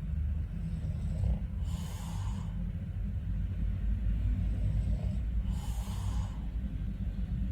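A man breathing heavily and snoring in his sleep: two airy breaths about four seconds apart, over a steady low rumble.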